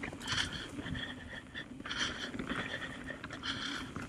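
Mountain bike rolling down a dirt singletrack: tyres crunching over dirt and the bike rattling, with the rider breathing hard in uneven patches.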